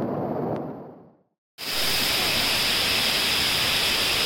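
A waterfall's steady hiss of falling water cuts in suddenly about one and a half seconds in and holds. Before that, a low rush fades out and there is a moment of silence.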